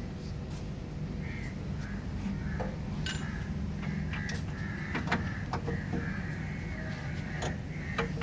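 Birds cawing in short repeated calls over a steady low hum, with scattered sharp clicks and knocks.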